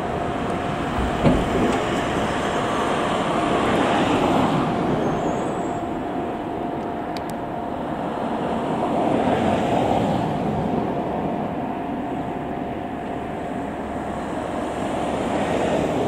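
Fukushima Kotsu 7000-series electric train rolling slowly toward a level crossing, its running noise swelling and easing several times. A steady level-crossing alarm tone sounds throughout, and there is one sharp clank about a second in.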